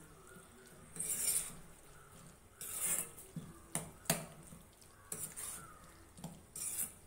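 A spatula stirring thick goat-lung gravy in a metal kadai: scraping strokes against the pan every second or two, with a couple of sharp knocks about four seconds in.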